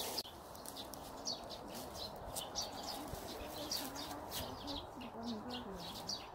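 Small birds chirping, short high notes repeated a few times a second.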